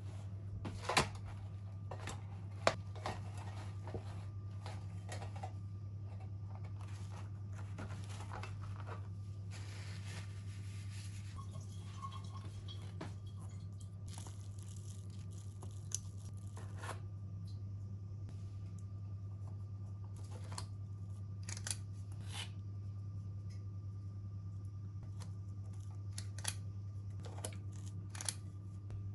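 Kitchen handling sounds over a steady low hum: two sharp knocks from a metal baking tray being set down, then scraping of stiff dough in a steel bowl and scattered clicks of a spring-lever ice cream scoop releasing dough balls onto a silicone baking mat.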